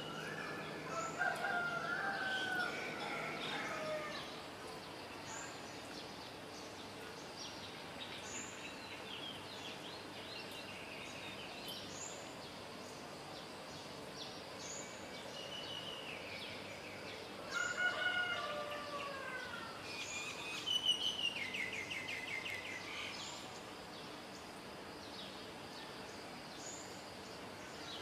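Birds calling outdoors. Two longer calls with falling pitch come about a second in and again about two-thirds through, over short high chirps repeated every second or so, with a quick trill after the second call.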